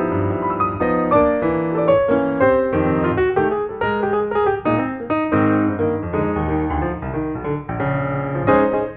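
Background piano music: a steady run of notes with no other sound.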